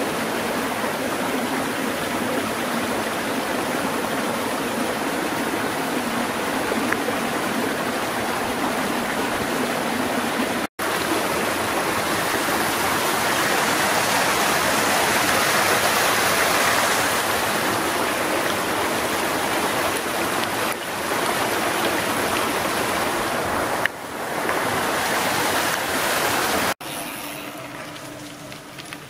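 Rocky stream running and splashing over a small cascade, a steady rush of water. It drops away sharply near the end.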